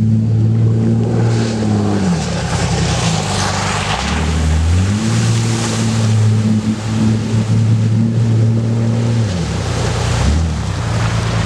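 Jeep Cherokee's engine pulling while off-roading. Its pitch drops about two seconds in, climbs again around five seconds, and drops once more near the end, over a steady rushing noise.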